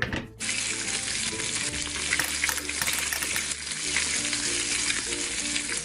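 Frying sizzle sound effect, a steady hiss, after a short clatter right at the start, with soft background music underneath.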